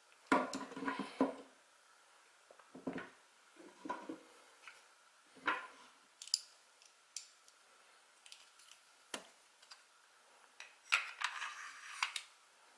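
Steel parts of an STI 2011 Edge pistol being fitted back together by hand: short scrapes of metal on metal and sharp clicks in scattered bursts, busiest just after the start and again near the end.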